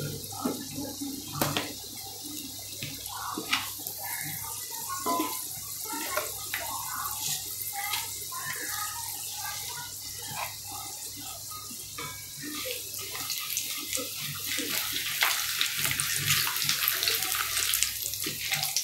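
Mustard seeds, urad dal and chana dal sizzling in hot oil in a kadai during tempering, with scattered pops as the seeds splutter. The sizzle grows louder in the second half.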